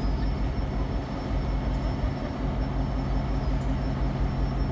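Diesel locomotive leading a work train, its engine running with a steady low drone as it approaches slowly.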